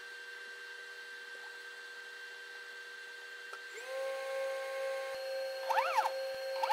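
Steady electric hum and whine of the QIDI Q2 printer and QIDI Box filament dryer running. About four seconds in the hum steps to a higher, louder pitch as the filament-drying cycle starts. Near the end, short squeaks that rise and fall come about once a second.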